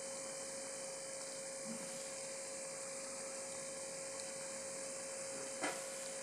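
Balushahi frying in hot oil in an aluminium pan, a steady sizzling hiss as the oil keeps bubbling around them, with a steady hum tone underneath. There is a light click near the end.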